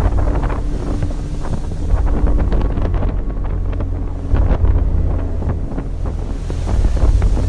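Strong wind buffeting the microphone over the rush of storm waves and spray below a ship's side, gusting unevenly.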